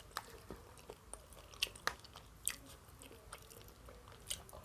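A person chewing food with the mouth closed: soft, scattered wet clicks and smacks.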